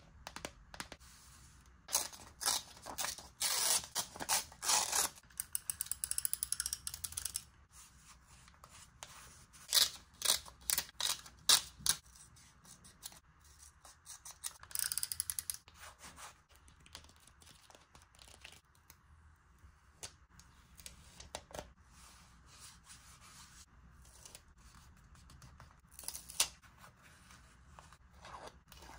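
Close-up crafting sounds of paper and stationery being handled for journal decorating: crackly rustling, scraping and sharp clicks in scattered bursts, busiest over the first dozen seconds.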